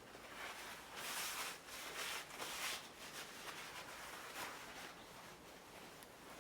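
Faint, intermittent rustling and rubbing handling noises, with a cluster of bursts in the first few seconds and a smaller one later.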